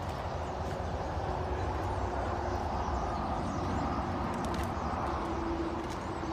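Steady low rumble and hiss of an idling vehicle, with a faint steady hum and a few faint high chirps from a large flock of birds perched on power lines.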